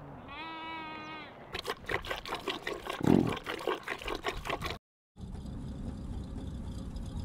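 Milk tea being poured, the liquid splashing in a run of quick irregular spatters, just after a short steady tone. The sound cuts off abruptly about five seconds in, and a steady low noise follows.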